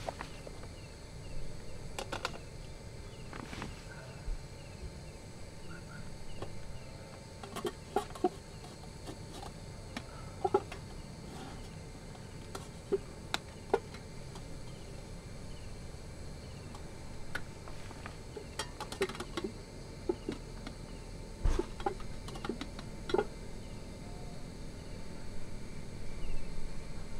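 Metal spoon clinking and scraping in a stainless steel steamer pot on an electric multi-cooker, in scattered sharp taps. The pot's glass lid is handled near the end. Faint chirping repeats steadily in the background.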